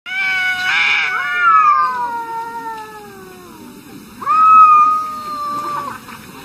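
Cats yowling at each other in a standoff: one long wavering yowl that slides down in pitch over about three seconds, then, after a short lull, a second, steadier drawn-out yowl.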